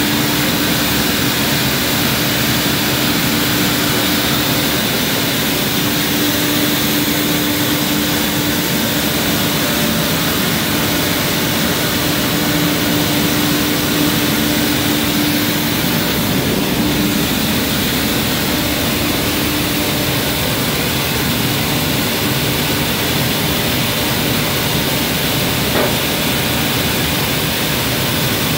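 Automated steel shotblasting and priming line running: a loud, steady machine noise with a constant hum that fades a little past halfway.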